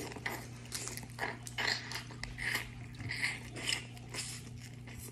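Close-miked biting and chewing of seasoned seafood boil: a string of short, irregular wet mouth sounds, over a steady low hum.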